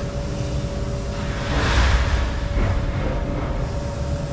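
Vehicle running down the road, heard from inside: a steady low engine and road rumble with a steady hum. A brief rush of noise swells and fades about two seconds in.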